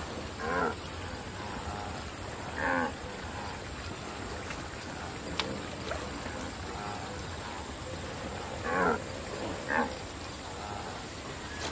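Short animal-like grunts from cartoon wildebeest, four in all: one near the start, another about two seconds later, and two close together about nine seconds in, over a steady background hiss.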